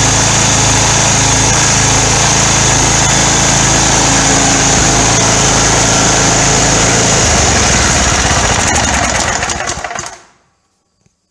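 Tecumseh OHV16 single-cylinder overhead-valve engine on a Cub Cadet CLT-160 lawn tractor running steadily. It is running again after a no-start caused by a push rod that had slipped out of its tappet and loose valve lash. The engine's note changes about seven seconds in, and it is shut off and winds down about ten seconds in.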